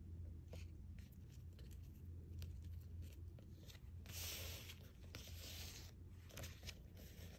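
Faint rustling and small ticks of silk fringe and thread being handled while a knot is tied around the tassel, with two louder spells of rustle about four and five seconds in, over a low steady hum.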